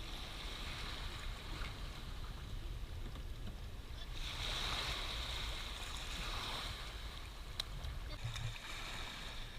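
Water rushing and lapping around a kayak on the water, swelling into a longer rush from about four to seven seconds in, over a low rumble.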